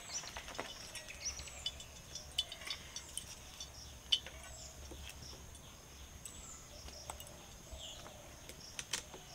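Steady high-pitched insect whine, cricket-like, with short falling chirps repeating every second or so and a few light clicks and snaps.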